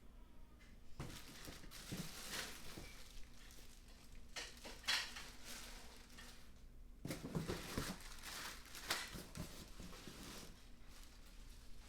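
Clatter and rustle of baby play yard poles and parts being handled, in several short bursts.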